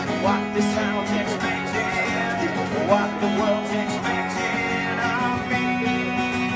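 Acoustic guitar strummed steadily, with a singing voice holding wavering notes over it in the first half.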